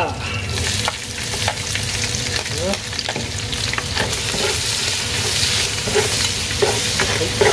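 Ginger sizzling as it is sautéed in rendered beef fat, the hiss swelling about half a second in, with frequent clicks and scrapes of a utensil stirring it in the pan.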